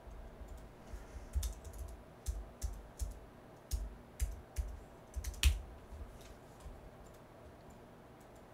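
Irregular clicks from a computer keyboard and mouse being worked, about a dozen in a few seconds, the loudest about five and a half seconds in.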